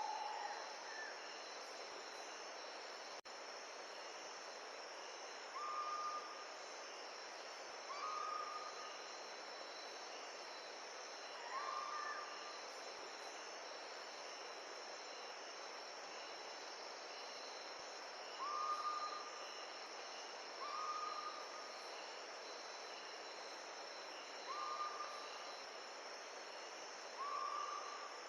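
Outdoor nature ambience: a steady high insect drone over a soft even hiss, with a short hooting or whistled call repeated about eight times at uneven intervals of a few seconds.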